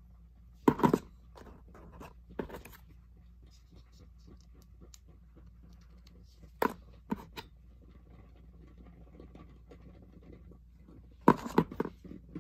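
Metal Beyblade spinning on the plastic floor of a Zero G stadium, a faint steady scraping whir, broken by sharp clicks and knocks: one about a second in, a few around the middle and a cluster near the end.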